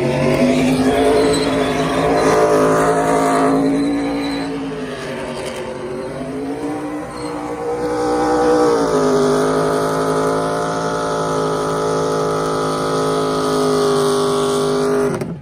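NASCAR Truck Series race truck's V8 held at high revs during a burnout, its rear tires spinning on the pavement. The engine note sags for a few seconds midway, then climbs again and holds steady.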